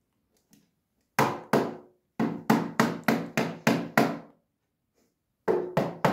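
Knocking on a hollow plastic stool lid, rapped by an African grey parrot's beak and by a person's hand. Each knock is sharp with a short hollow ring. There are two knocks about a second in, then an even run of about seven at roughly three a second, and after a pause three more near the end.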